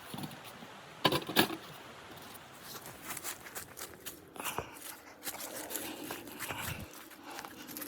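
Close crunching and crinkling handling noises, with two sharp knocks about a second in.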